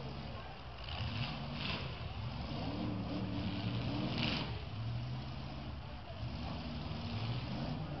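Demolition derby car engines running, revving up and dropping back several times, with bursts of harsher noise as they rev hardest.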